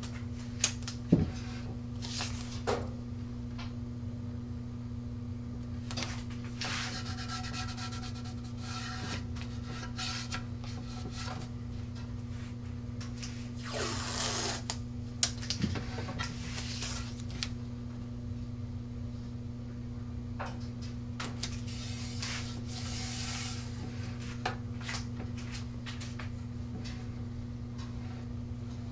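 Blue painter's masking tape being pulled off the roll and rubbed down along a rocket body tube next to a fin: several rasping, crackly bursts of tape unrolling with scattered small clicks and handling rubs, over a steady low hum.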